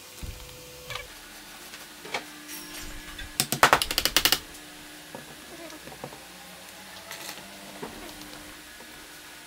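A hammer tapping a pine strip on a wooden jig: a quick run of about ten light, sharp taps lasting about a second, the loudest thing heard. Scattered single knocks of wood being handled come before and after, over a faint steady hum.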